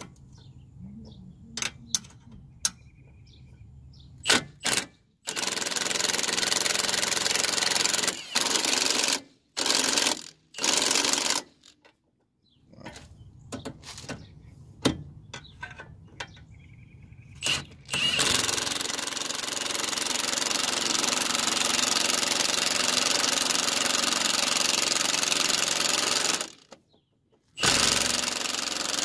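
Milwaukee cordless impact wrench hammering the strut-to-knuckle bolts tight. It runs in several bursts of a second or a few seconds, and one long run of about eight seconds in the second half.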